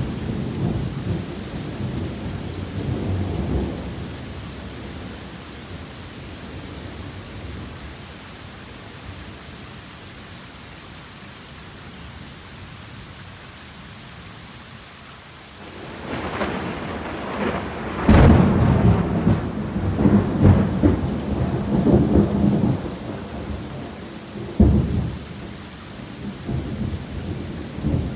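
Torrential rain falling steadily with thunder. A low rumble dies away over the first few seconds. About halfway through, thunder builds into a loud crack and rolls on for several seconds, and a sharp clap comes near the end.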